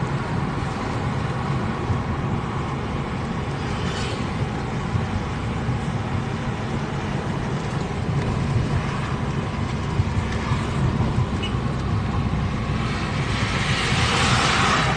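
Road and engine noise from inside a moving car: a steady low rumble with a louder rushing swell near the end.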